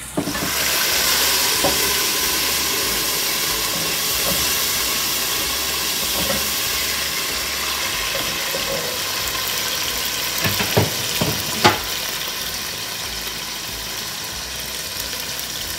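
Browned onions with a little water added sizzling and steaming in hot oil in a lidded pot: a loud, steady hiss. A few short knocks about two-thirds of the way through, from the lid and a wooden spatula against the pot.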